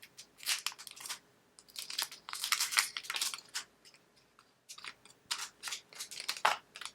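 An Apple Pencil's thin plastic wrap crinkling and tearing as it is pulled off: a quick, irregular run of short crackles and rips.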